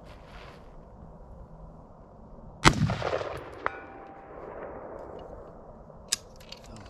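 A single AR-15 rifle shot followed by a long rolling echo, and about a second later the short ring of the bullet hitting the steel target downrange. A sharp click near the end.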